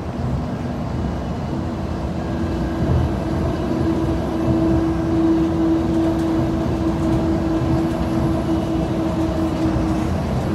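DFW Skylink automated people-mover train running, heard from inside the car: a steady low rumble with a motor whine that comes in a second or so in, climbs slightly in pitch, then holds.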